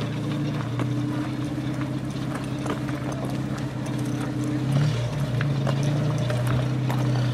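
Machinery running with a steady low hum, scattered with light knocks and clicks; the hum wavers briefly in pitch about five seconds in.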